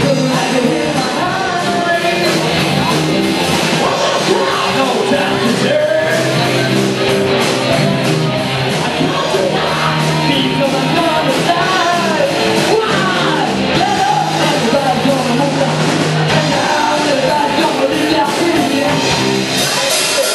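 Live rock band playing loud, with a voice singing over bass, guitar and drums.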